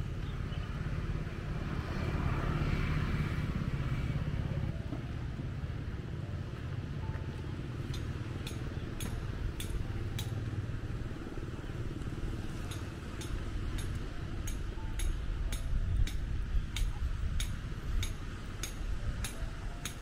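Outdoor ambience of a steady low rumble, with a motorbike or other vehicle passing about two to four seconds in. From about eight seconds in come regular light clicks about twice a second, at a walking pace.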